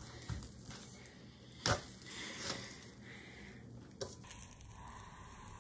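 Mostly quiet, with a few light clicks of metal kitchen tongs; the sharpest comes about a second and a half in and a smaller one about four seconds in.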